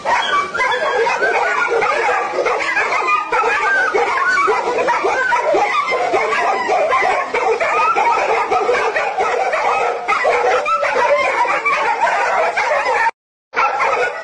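Dogs barking and yelping, several overlapping calls with no break, cutting out for a moment near the end.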